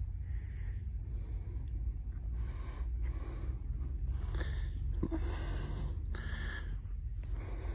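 A person breathing close to the microphone, soft breaths about once a second, over a steady low hum.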